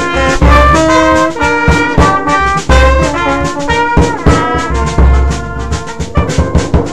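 Brass band playing: trumpets and trombones hold notes over low bass notes and drum strokes, with a quick run of drum strokes near the end.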